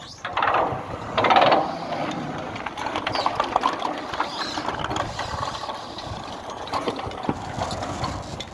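Long corrugated metal roof sheet scraping and rattling as it is slid down over steel purlins, with two louder rasping, rapidly clicking bursts near the start followed by irregular metallic rattles and scrapes.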